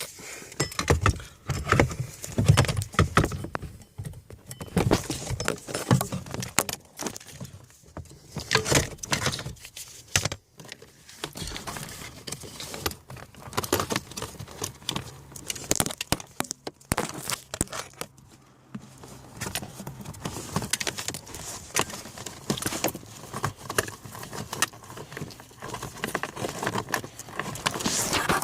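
Irregular clicking, clattering and rattling of small hard objects being handled, like plastic parts, screws or tools being moved about during the heater repair work.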